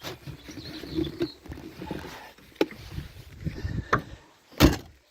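Irregular knocking and clattering of metal parts and tools being handled during suspension work, with a couple of sharper knocks and one loud, sharp knock near the end.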